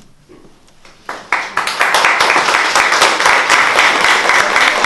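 Audience applauding: hand claps start about a second in and quickly build to a steady, dense applause.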